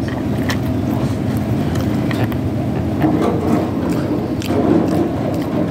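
A steady low rumble of background noise with a few short clicks scattered through it, while a person chews french fries close to the microphone.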